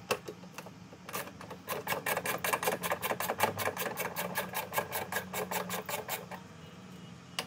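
Ratcheting Torx bit driver clicking as a cowl bolt is turned out: a rapid, even run of clicks, about seven a second, that starts about a second in and stops shortly before the end.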